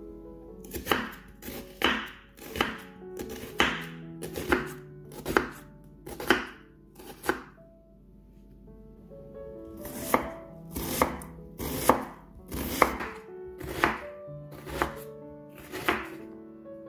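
A kitchen knife chopping a peeled onion on a wooden cutting board, each stroke a crisp knock of the blade through the onion onto the board, about one a second. The strokes pause for about two seconds in the middle, then resume.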